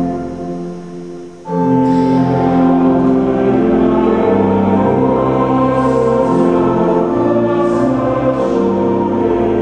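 Pipe organ and congregation singing a Lutheran chorale. The end of one verse dies away in the church's reverberation, and about one and a half seconds in the organ and voices start the next verse together and carry on steadily.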